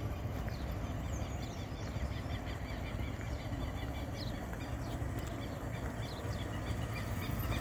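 Birds chirping again and again over a low, steady rumble, with a small motorcycle riding slowly at a distance.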